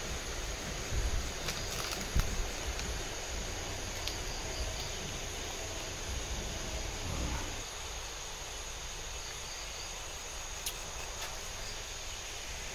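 Night insects, crickets among them, chirping steadily as a background hum, with a few soft knocks and rustles of handling in the first couple of seconds.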